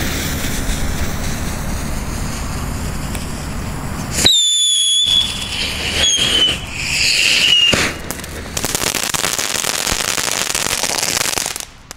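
Sina three-stage whistling ground fountain with crackling. It sprays with a steady hiss, then gives three shrill whistles in turn, each a little lower than the one before, and ends in a dense crackle of many small pops.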